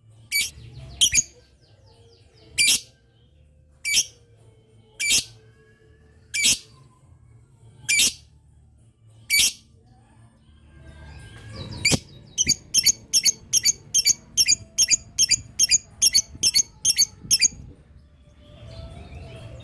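Lovebird calling. For the first nine seconds it gives single sharp, shrill calls about every second and a half. Then comes a fast run of about twenty calls, roughly four a second: the long "ngetik" (typing) call that lovebird keepers play to set other lovebirds answering.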